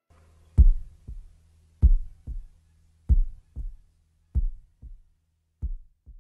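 Heartbeat sound effect: five slow double thumps, each a strong beat and a weaker one just after, over a faint steady low hum. The beats grow fainter toward the end.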